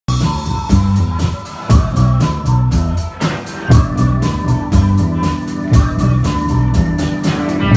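Live band music with a steady beat: drum kit, bass line and sustained keyboard or organ tones.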